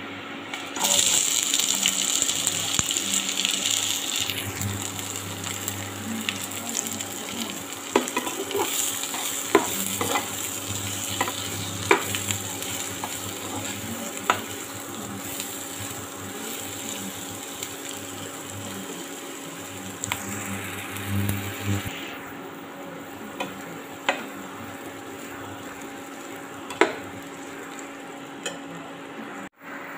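Sliced onions hitting hot oil in a nonstick kadai and sizzling loudly at once, then frying as a steel spatula stirs them, with sharp taps of the spatula on the pan now and then. The sizzle dies down about three quarters of the way through.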